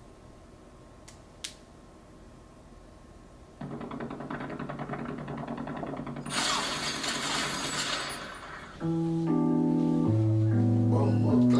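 Quiet room with a single click, then a rushing, crackly noise swells up and dies away, and about nine seconds in loud music starts with long held bass and synth notes.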